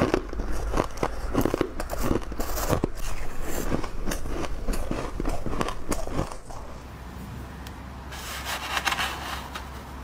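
Crisp, rapid crunching of humidifier frost, powdery freezer frost being bitten and chewed, for about six seconds. After that it is quieter, with a soft hiss near the end.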